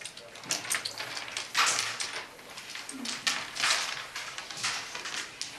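A carrom striker being slid over the board as the player positions it on the baseline: a handful of short swishes, about one a second.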